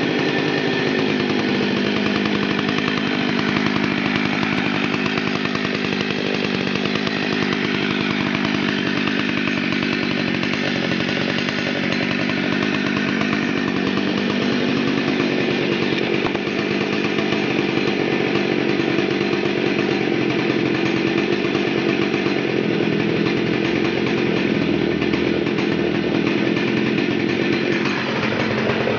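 Husqvarna 61 two-stroke chainsaw running continuously, its engine pitch drifting up and down, with a brief dip in level and a change in note about a second before the end.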